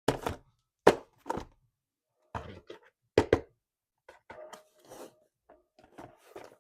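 Handling of an RC toy car and its packaging: a series of sharp clacks and knocks, then softer rustling and scraping.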